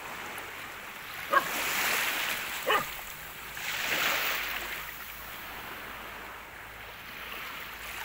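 A dog gives two short barks about a second and a half apart, over the steady wash of surf that swells twice.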